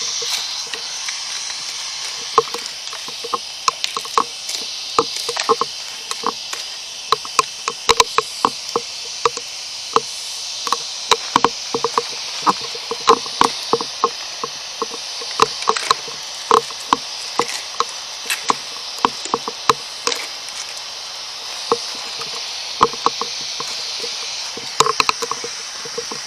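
Radio static hissing from a spirit box scanning through radio frequencies, broken by many short, irregular clicks and crackles.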